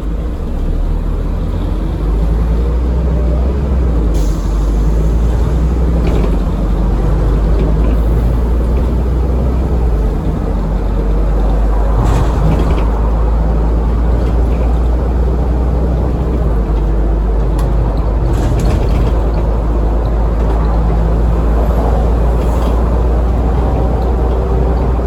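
Scania N230UD Enviro400 double-decker bus heard from inside while it drives, its five-cylinder diesel giving a steady low rumble with a few short rattles from the body. A faint rising turbo whine comes in near the end.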